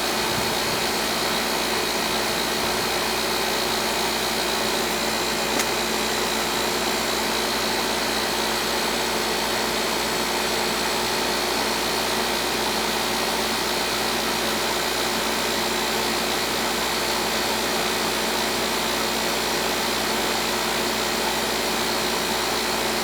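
Coleman central air conditioner's outdoor condensing unit running steadily, its compressor and condenser fan making a constant hum and rush of air.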